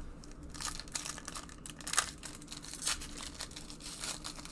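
A trading-card pack wrapper crinkling and tearing as it is opened, in irregular crackles, the loudest about two seconds in.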